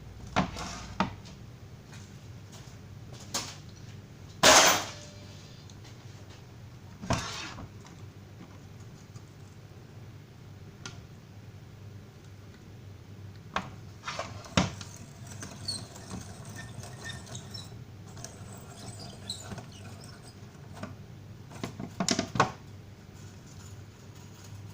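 Metal parts of an electric stove and its heating element being handled and worked on: scattered clinks and knocks. The loudest comes about four and a half seconds in, and a quick cluster of clatter comes near the end.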